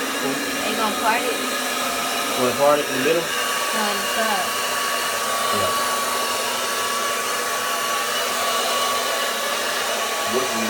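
Handheld hair dryer running steadily, a loud even rush of air, used to blow natural hair straight. A thin steady whine joins the rush about three seconds in.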